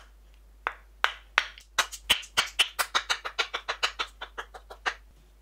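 A maple offcut being rubbed back and forth on the freshly glued face of an oak block, making a run of quick, sharp smacking clicks that speed up to about five a second and then stop.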